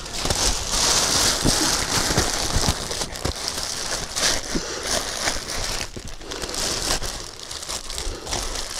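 Clear plastic bag crinkling as it is gathered and tied shut with string over straw being sealed in for urea treatment. The crackling is louder in the first few seconds, then softer.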